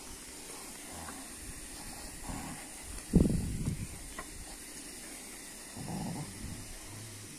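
Dogs growling in play while tugging on a rope, in short rough spells. About three seconds in comes one sudden loud outburst, the loudest sound, and another growl follows near six seconds.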